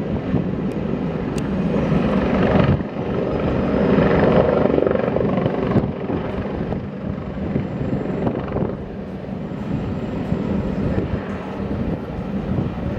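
Helicopter running, the rapid chop of its rotor blades over steady engine noise; the sound changes abruptly about three and six seconds in.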